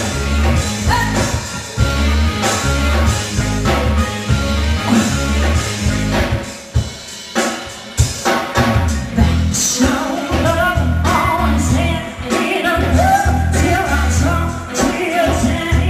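Live pop-rock band playing: a woman singing over drum kit, bass and electric guitar. The bass and drums drop out briefly about six seconds in, then the full band comes back.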